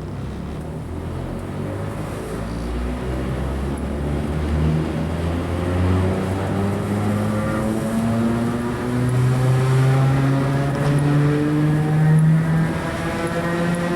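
Very old, worn English Electric traction motors of a 2EPB electric multiple unit whining as the train accelerates. Several tones rise steadily in pitch while the sound grows louder.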